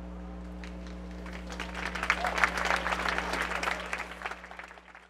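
Crowd applauding as the projection ends: the clapping starts about a second in, swells, then fades away near the end, over a steady low hum.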